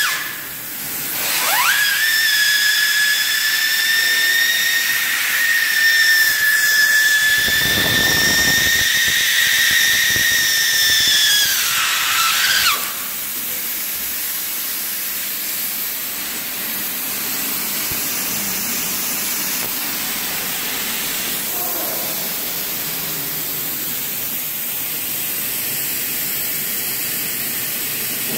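Hot air PVC vinyl welder running, with a steady rush and hiss of hot air. A high-pitched whistle rises in about two seconds in, holds steady, and cuts out with a short falling dip about thirteen seconds in, leaving the air hiss alone.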